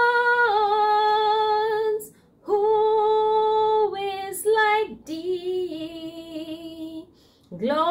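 A woman singing a slow worship song alone, with no accompaniment, holding long notes in three drawn-out phrases with brief breaths between them. The last phrase sits lower and wavers.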